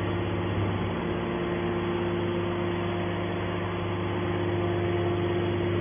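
Hydraulic power unit of a heavy scrap metal baler running with a steady hum while a hydraulic cylinder lifts the baler's lid open.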